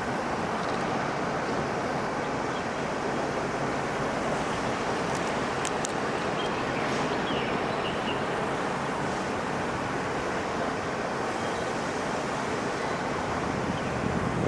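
Steady, even rushing background noise with no single clear source, picked up by a camera's built-in microphone, with a couple of faint ticks about five to six seconds in.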